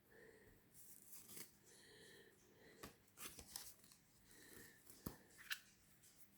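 Faint handling of oracle card decks and their packaging: soft rustles with a few light clicks, the loudest about three and five seconds in.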